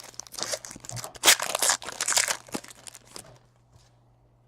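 Foil trading-card pack wrapper being torn open and crinkled: a dense crackling rustle that stops about three seconds in.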